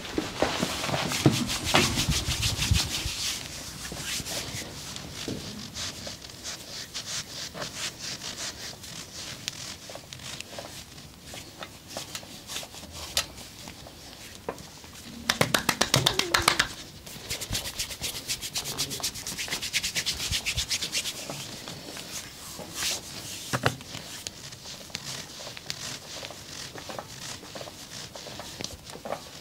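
Massage sounds: hands rubbing and working over skin or clothing with a steady scratchy friction. About halfway through there is a brief run of rapid taps, louder than the rubbing.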